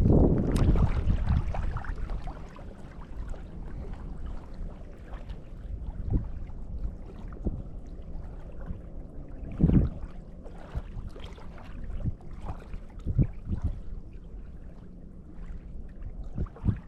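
Wind buffeting the microphone in gusts, strongest for the first couple of seconds, then a lower rumble with irregular bumps.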